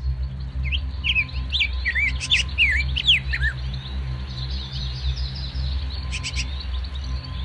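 Birds chirping in a quick series of short, swooping calls, thickest in the first few seconds, over a steady low hum.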